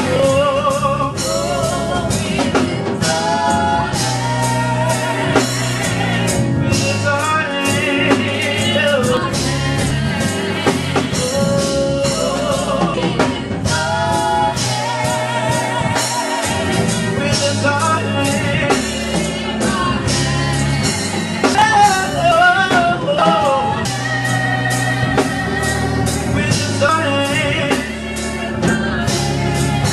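Gospel praise music: singing voices over a band with a steady drum beat and bass.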